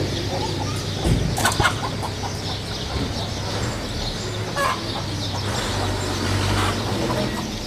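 Chickens clucking with scattered short calls, a few sharp knocks about a second and a half in, and a steady low hum underneath.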